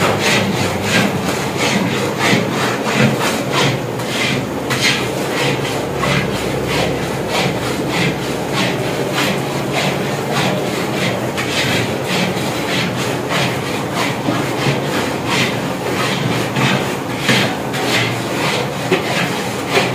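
A ladle scraping and scooping thick carrot halwa against a large metal cooking pot, in repeated scraping strokes at a steady rhythm.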